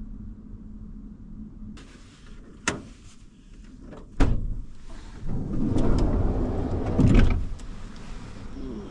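A click and a sharp knock, then a couple of seconds of rustling and shuffling as a person moves about in the bedding inside a camper van.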